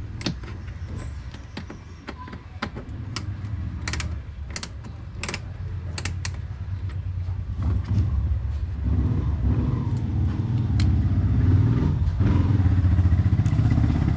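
Scattered sharp clicks and clatter of a plastic mud guard and its fasteners handled at a car's wheel arch. About eight seconds in, a loud low rumble builds up and continues.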